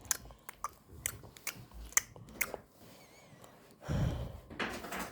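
A person chewing and biting food close to the microphone: a run of wet, clicking mouth sounds, then a louder breathy noise about four seconds in.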